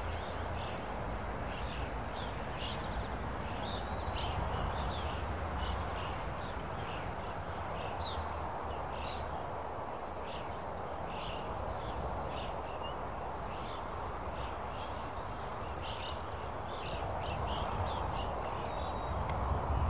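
Open-country ambience: a steady low rushing noise with many short, high chirps scattered throughout.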